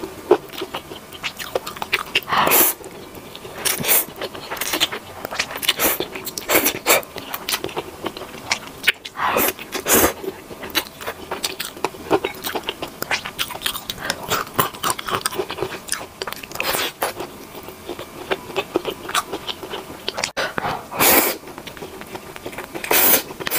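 A person eating spicy stir-fried instant noodles close to the microphone: chewing with wet smacks and irregular mouth clicks, then slurping a spoonful of noodles near the end.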